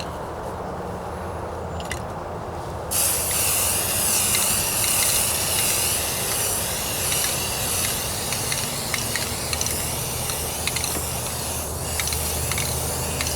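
Aerosol can of automotive primer spraying: a loud steady hiss that starts suddenly about three seconds in and wavers slightly as it goes on, over a low rumble of wind on the microphone.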